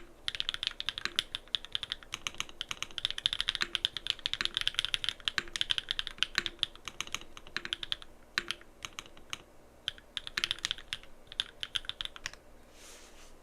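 Typing on a Frog Mini mechanical keyboard with SW x Gateron Deeping linear switches, an aluminium plate and full foam: fast, continuous keystrokes that thin out after about eight seconds and stop shortly before the end.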